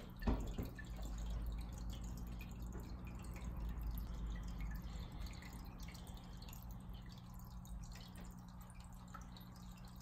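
Aquarium filtration running: water dripping and trickling over a steady low hum, with one sharp knock about a third of a second in.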